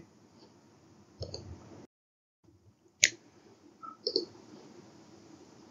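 A single sharp computer mouse click about three seconds in, in otherwise quiet room tone with a few faint short soft noises.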